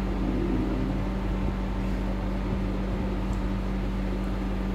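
A steady low hum with a constant tone underneath, unchanging throughout.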